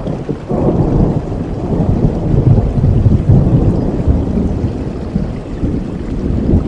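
Steady rain with a long, deep roll of thunder that swells about half a second in, rumbles for several seconds and then eases off.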